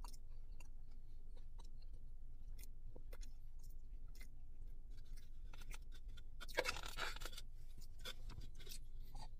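Chewing a crispy fried chicken tender: a scatter of small crunches and mouth clicks, with one louder noisy burst lasting under a second about two thirds of the way through.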